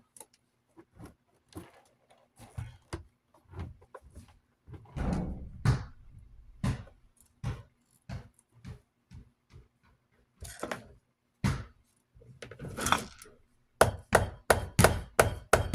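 Knocks and clicks of tools and metal parts being handled while taking apart a desk fan's motor, ending in a run of quick taps about four a second.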